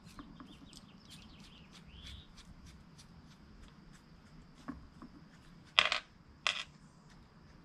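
Small metal nuts, washers and a bolt being handled by hand: a few faint clicks, then two brief rattles about six seconds in, half a second apart.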